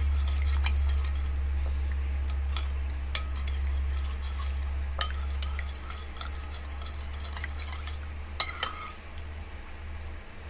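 Metal spoon stirring a thin soy-sauce mixture in a bowl to work the guava jelly in, with scattered light clinks of the spoon against the bowl. A low steady hum runs underneath and eases off after about six seconds.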